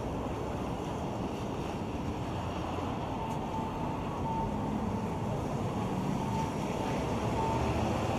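Steady city street noise: traffic running on a wet road, slowly growing louder, with a few faint short beeps midway.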